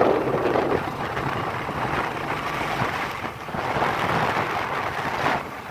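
Wind buffeting the microphone on a moving motorcycle, a loud rushing noise, with the motorcycle engine's low hum running underneath.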